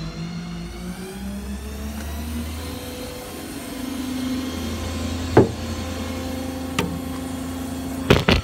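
Ford F-550's 6.7 Power Stroke diesel running steadily after starting, its pitch climbing for the first second or so and then holding. Sharp metal knocks sound over it: a loud one about five seconds in, a lighter one, and a quick double knock near the end.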